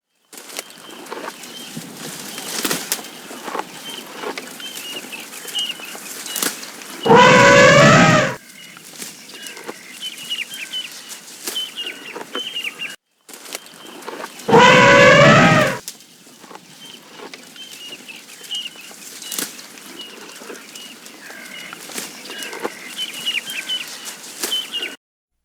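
Two loud, pitched animal calls, each about a second long, about seven seconds apart, over a steady background of high chirps and clicks.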